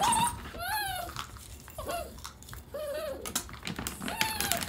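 Dog whining in about five short, high-pitched cries that rise and fall, with scattered clicks in between.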